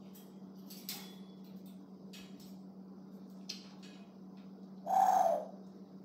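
A single short animal call about five seconds in, a slightly falling tone lasting about half a second, over a steady low hum. A few faint clicks come before it.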